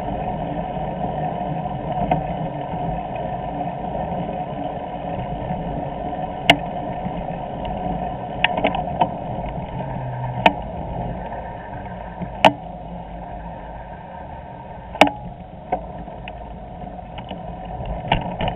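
Steady rumble of a bicycle riding along a paved cycle path, picked up by a handlebar-mounted camera, with a handful of sharp knocks from about six seconds in as the bike and the camera mount jolt over bumps.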